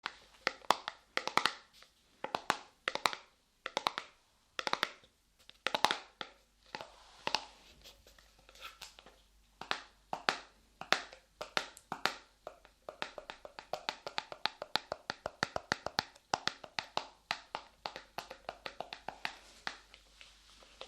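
Light modelling clay pressed, squished and peeled on a microphone, making sticky crackles and snaps. About midway it turns to quicker taps, several a second.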